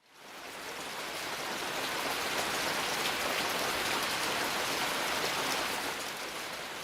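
Sleep sound machine playing its rain setting: a steady, even hiss of recorded rainfall that fades in over the first second.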